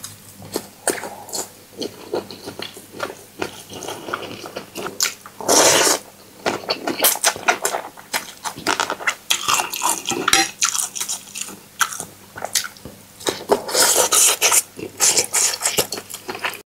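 Utensils clicking and scraping against a dish, with irregular sharp clinks throughout and a louder scrape about five and a half seconds in.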